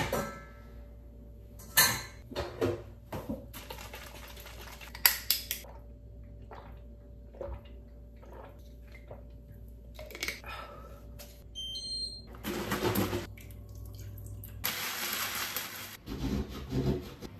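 Kitchen clatter: cupboard doors and dishes knocking, with a quick run of short electronic beeps partway through. Near the end a tap runs into the sink twice.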